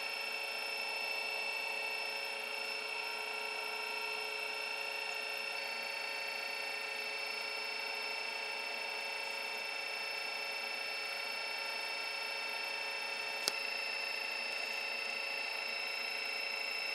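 Stepper motor of a pickup coil winder spinning a bobbin while winding fine copper wire onto a replacement humbucker coil, giving a steady whine of several high tones. A single click about thirteen seconds in.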